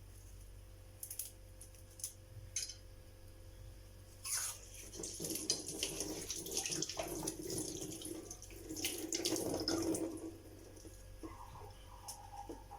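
Water splashing and sloshing in a cooking pot as thyme is added and the herbs are mixed into the water, in two spells of a few seconds each, after a few light clicks.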